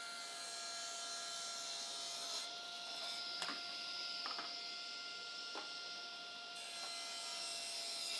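Table saw running at full speed with a steady whine over a hiss, and a few light knocks of a plywood board being handled on the saw table.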